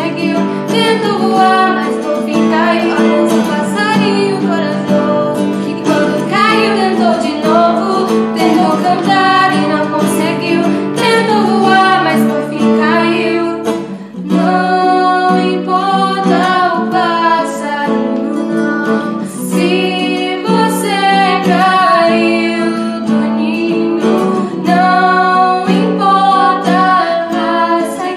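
Two female voices singing a song together to an acoustic guitar.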